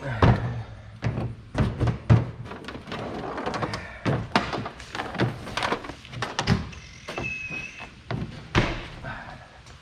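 Boxy home-electronics units being lifted out and handled: a series of irregular thunks and knocks with some rustling, and a short high squeak about seven seconds in.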